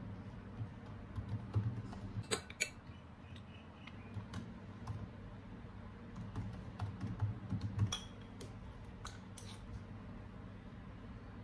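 Typing on a MacBook laptop keyboard: irregular soft key clicks, with a few sharper taps.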